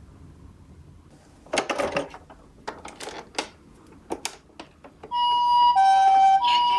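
A series of sharp clicks and knocks, then about five seconds in a toy ambulance's electronic two-tone siren switches on, alternating high and low notes in the Japanese-style "pee-po" pattern.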